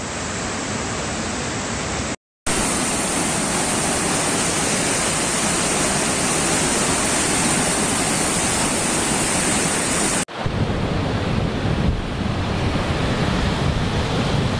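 A flooded, muddy mountain stream rushing in spate: a dense, steady noise of fast water. It drops out for a moment about two seconds in and changes abruptly about ten seconds in as one recording gives way to another.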